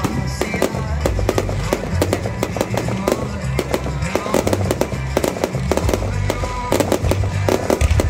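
Fireworks going off in quick succession, dense bangs and crackling from bursting shells, over music with a moving bass line.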